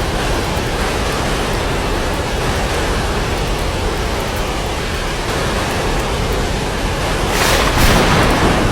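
Steady rain falling in a thunderstorm, with a constant low rumble under the hiss of the rain and a brief louder swell near the end.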